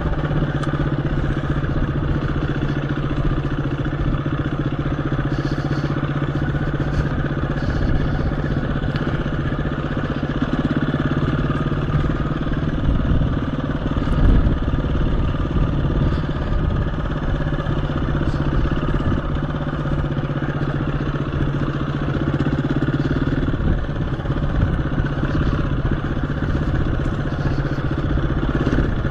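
KTM 350 EXC-F dirt bike's single-cylinder four-stroke engine running steadily as the bike is ridden along, with a brief louder moment about halfway through.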